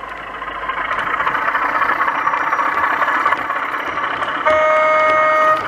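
O gauge model Class 33 diesel locomotive with DCC sound passing close by, its diesel engine sound and wheel running noise growing louder. Near the end it gives a single steady horn blast of about a second, which cuts off sharply.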